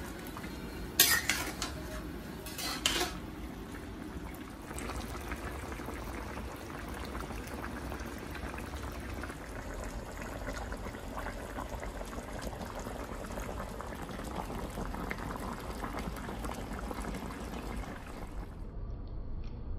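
Chicken pochero stew simmering and bubbling in a stainless steel pan, a steady crackling bubble. In the first three seconds a utensil clicks sharply against the pan a few times.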